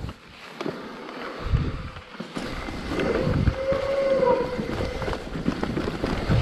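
Mountain bike ride noise: wind buffeting the microphone with knocks and rattles from the rough trail. From about halfway through, a wavering high tone joins in.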